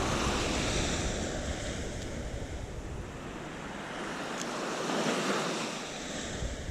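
Surf on a sandy beach: waves washing in, one swelling up about five seconds in, with some wind buffeting the microphone at the start.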